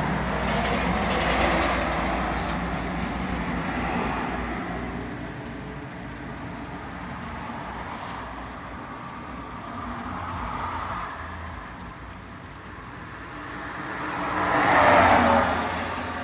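Road vehicles passing by, their noise swelling and fading several times, with the loudest pass near the end.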